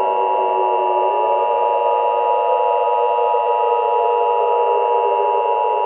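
Emergency Alert System attention signal: the two-tone EAS alarm, two steady tones sounded together without a break, over a rough noisy layer beneath.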